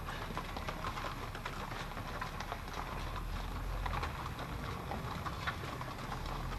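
Hooves of a string of mules clopping on a rocky dirt trail as they walk: many short, uneven steps.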